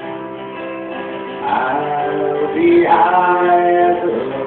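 Acoustic guitar playing a live blues tune, with a man's singing voice coming in about a second and a half in.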